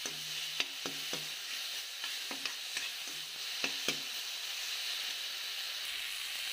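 Sour greens, potato and onion frying in oil in a karahi, stirred and scraped with a steel ladle: a steady sizzle with scattered sharp clicks of the ladle against the pan, most of them in the first four seconds.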